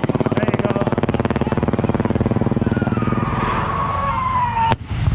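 An engine running with a steady, rapidly pulsing drone that breaks off abruptly shortly before the end.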